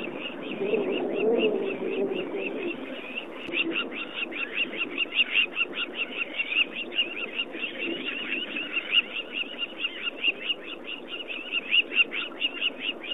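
Wild animal calls: a continuous run of short, high chirping notes, several a second, with louder lower-pitched calling over the first few seconds.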